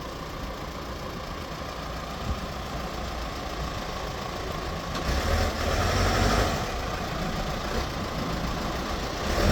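Diesel engine of a Cat 436B backhoe loader running through a brand-new muffler, as the machine is driven forward and back. The engine note grows louder about five seconds in, then settles again.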